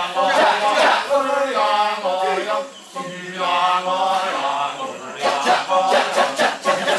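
Kecak chorus of men's voices: sung, held chanted notes, then about five seconds in the rapid percussive "cak" chant breaks out.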